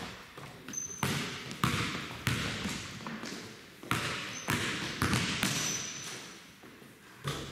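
Basketball bouncing on a hardwood gym floor: a string of irregular dribbles and knocks, each trailing into the hall's echo.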